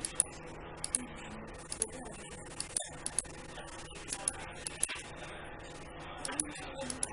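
Computer mouse clicking in an irregular run of sharp clicks, a couple each second, as points are set along a magnetic-lasso selection, over a faint steady hum.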